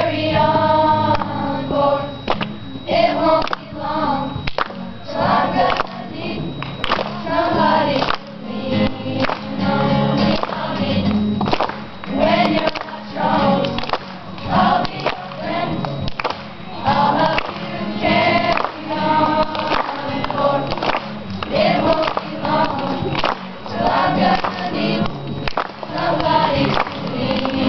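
A children's choir singing a song together in unison, accompanied by a strummed acoustic guitar.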